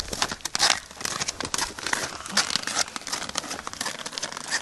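Snowshoes crunching and scraping on crusty, icy snow in quick, irregular steps.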